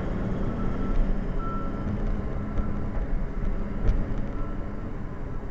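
Rock truck's diesel engine and drivetrain rumbling as the truck pulls off, heard from inside the cab, with a faint reversing beeper coming and going. A single sharp knock about four seconds in.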